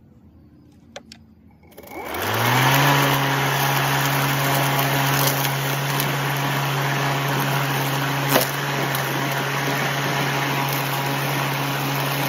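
Ryobi 40-volt brushless cordless lawn mower started by push button: after a couple of faint clicks, the electric motor and blade spin up over about a second to a steady hum with the rush of the spinning blade. It then runs steadily as it is pushed through grass and leaves, with one sharp tick about eight seconds in.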